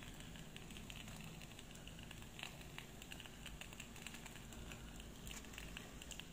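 Hot oil in a takoyaki pan faintly crackling and popping with small irregular ticks.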